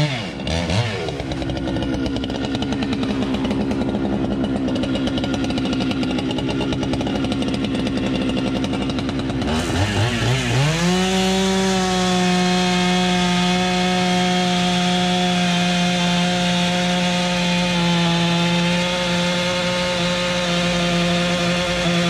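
Two-stroke chainsaw running hard with a rough, lower pitch. About ten seconds in, it revs up and holds a steady high pitch for the rest of the time.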